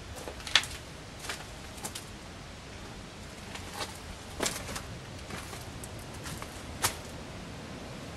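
Footsteps on a gritty, debris-strewn floor: a string of short, sharp crunches and clicks at uneven spacing over a steady background hiss.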